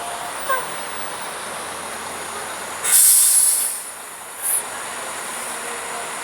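Steady roadside traffic noise with one loud hiss of released air about three seconds in, typical of a bus's air brakes.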